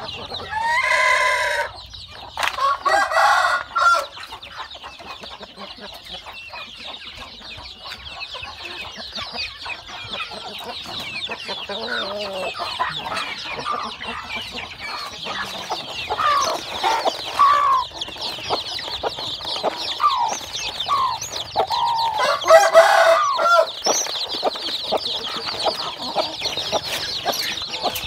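Chickens clucking, with a rooster crowing about a second in and again near the end, over constant high-pitched chirping.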